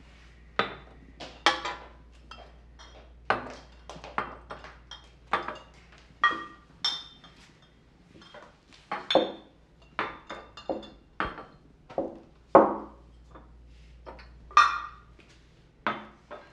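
Glass bottles and glasses clinking and knocking as they are handled and set down on a table: a string of irregular sharp clinks, some ringing briefly, the loudest about three-quarters of the way through.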